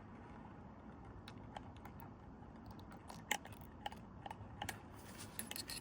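Faint, irregular small clicks and ticks from the mechanism of a Teletype Model 35 typing unit being handled during oiling. The clicks come sparsely at first and more often from about halfway through.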